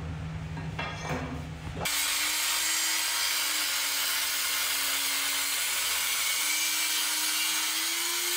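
A low hum, then about two seconds in an angle grinder starts cutting into an old metal water pipe: a steady motor whine under a loud, even grinding hiss.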